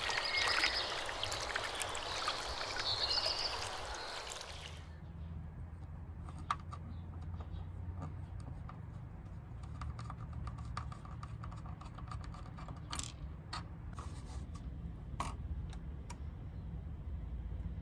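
Water running into a small sink, stopping abruptly about five seconds in. After that comes a low steady hum with faint scattered clicks.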